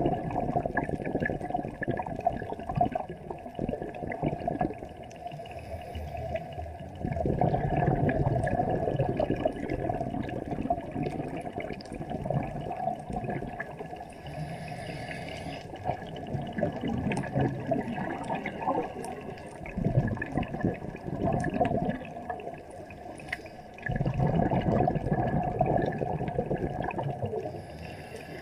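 Muffled underwater water noise picked up by a submerged camera: a steady rushing and sloshing that swells louder for a few seconds at a time, several times over.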